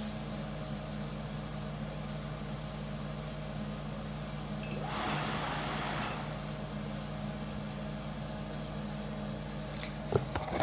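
Over-the-range microwave oven running with a steady hum. There is a brief hiss about five seconds in and a few sharp clicks near the end.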